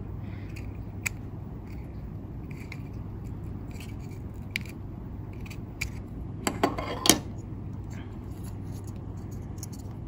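Small clicks and scrapes from an Arduino CNC shield being handled and pulled off the Arduino Uno's header pins. A sharp cluster of clicks comes about seven seconds in. A steady low hum runs underneath.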